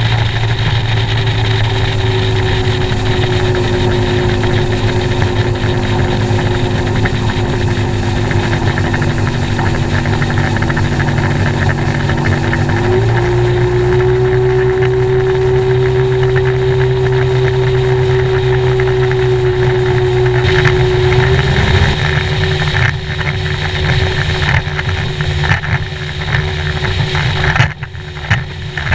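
Bass boat outboard motor running at about 50 mph: a steady engine drone over the rush of water. About a third of the way in the engine pitch steps up slightly. From about two thirds in the drone weakens under irregular slaps of the hull running through 1–2 ft chop.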